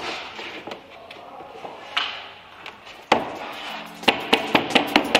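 Scattered wooden knocks and clatter from pine boards being handled and set down on a timber frame, with one loud knock about three seconds in. Near the end, music with a regular beat comes in.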